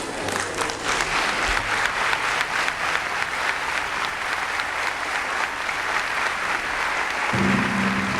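Audience applauding: a dense, steady patter of many hands clapping. A low, steady tone comes in near the end.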